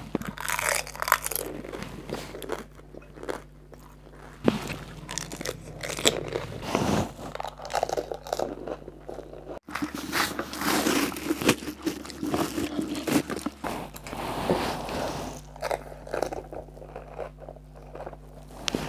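Close-up mouth sounds of a person chewing a whole fuchka (panipuri): the crisp fried shell, filled with mashed potato and spiced water, breaking up in irregular crunches and wet chewing.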